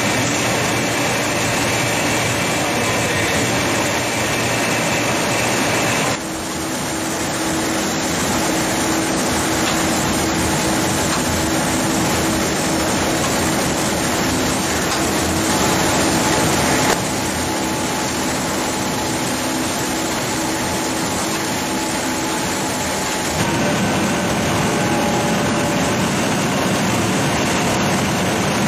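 Steady industrial machinery noise from a citrus processing line, a dense hum with a faint steady tone running through it. The sound changes abruptly three times: about six seconds in, around seventeen seconds, and around twenty-three seconds.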